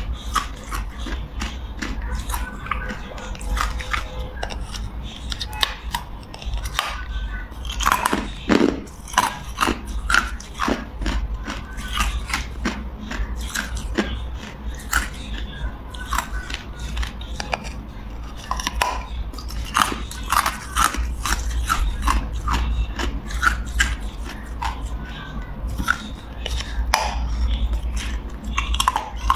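Ice being bitten and crunched in the mouth: a rapid run of sharp, irregular cracks and crunches as the pieces break between the teeth, over a steady low hum.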